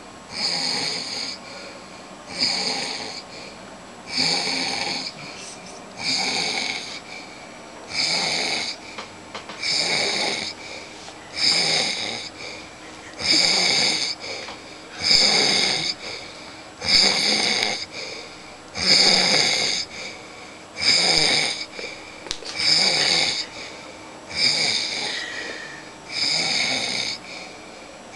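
A man snoring loudly in deep sleep, one long rasping snore about every two seconds in a steady rhythm.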